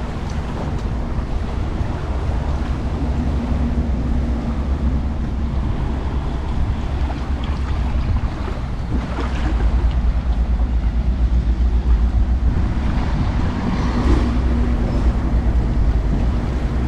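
Wind buffeting the microphone over the wash of small waves at the shore, a steady, rumbling noise with no speech.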